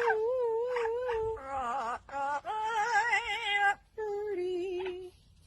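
Pet bird making a run of voice-like, sung notes: several long wavering tones broken by short gaps, with a faint tail near the end.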